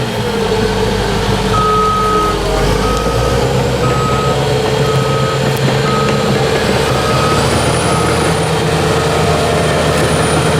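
Reverse alarm of a heavy diesel construction machine, beeping about once a second over its running engine. The beeping starts about one and a half seconds in and fades out near the end.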